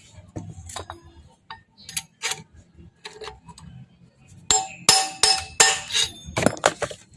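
Hammer blows driving the worn front wheel bearing out of a Suzuki Raider 150's wheel hub from the opposite side: a series of irregular ringing metal-on-metal strikes, which get harder from about halfway in.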